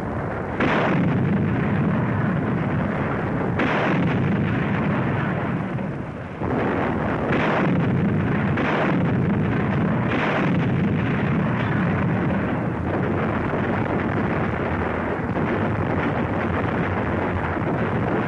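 British 25-pounder field guns firing: about five heavy shots in the first ten seconds, each followed by a long rolling rumble that carries on as a continuous low boom.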